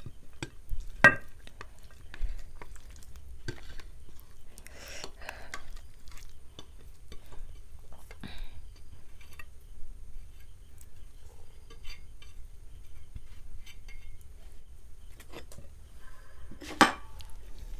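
Food being stirred and mixed on a plate: soft scrapes and scattered clinks, with a sharp clink about a second in and a louder one near the end.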